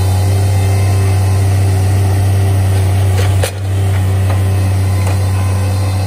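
Bobcat MT100 mini track loader's engine running steadily under hydraulic work, with one sharp clank about halfway through.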